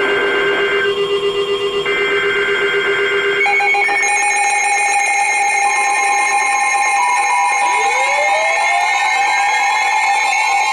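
Emergency Alert System broadcast tones: two warbling SAME digital header bursts that encode the coming alert, then the harsh, steady two-tone EAS attention signal (about 850 and 960 Hz) that announces a new warning. A rising sweep joins the attention tone about eight seconds in.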